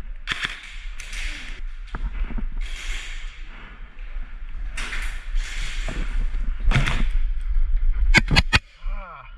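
Rustling, scuffing movement noise over a steady low rumble, with a quick run of sharp cracks about eight seconds in.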